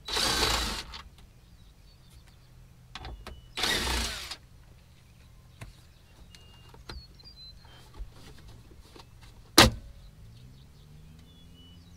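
DeWalt cordless impact driver running in two short bursts about three and a half seconds apart, spinning out the two 7 mm bolts of a dash trim panel. Small clicks of handled plastic follow, then one sharp snap, the loudest sound, as the panel's clip pops loose.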